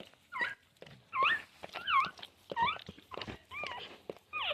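Newborn Labrador puppy crying in short high squeaks, about six in a row, each bending up and down in pitch, with small wet clicks of licking between them.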